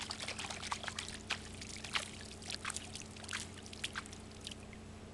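Small, irregular splashes and drips of pond water being stirred by hand at the surface. They die away about four and a half seconds in.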